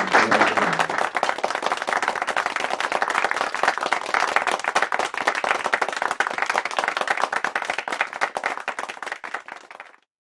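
A crowd applauding, a dense patter of many hands clapping that fades out over the last two seconds.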